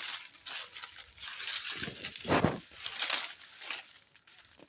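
Rustling and crinkling in a series of short noisy bursts, the loudest and deepest one about halfway through.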